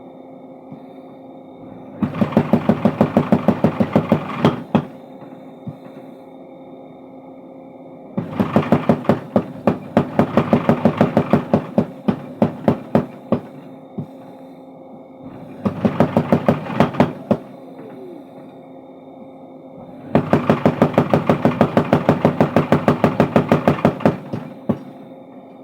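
Mechanical power hammer forging a steel bar into a crowbar: four runs of rapid, evenly spaced blows, about five a second, with the machine's motor humming steadily between runs.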